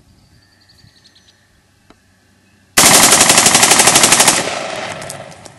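An M16 rifle firing one fully automatic burst of rapid, evenly spaced 5.56 mm shots, starting suddenly nearly three seconds in and lasting about a second and a half. The echo trails off for about a second after it.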